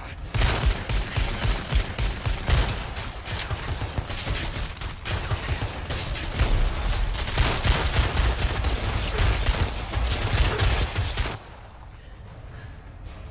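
Film gunfight gunfire: a long volley of shots in rapid succession, with pistols among the guns firing. It cuts off abruptly about eleven seconds in.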